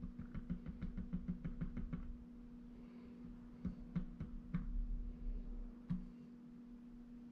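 Wall thermostat push buttons pressed over and over: a quick run of clicks, about seven a second, for about two seconds, then a second, more spaced-out run of clicks a couple of seconds later.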